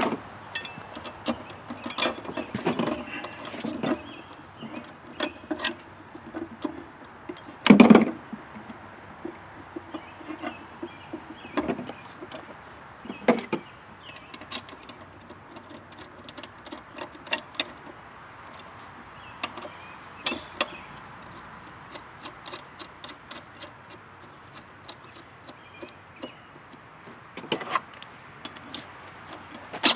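Scattered metal clicks, clinks and knocks of a lawn mower's steel cutting blade and its mounting hardware being fitted by hand under the deck, with a louder knock about eight seconds in.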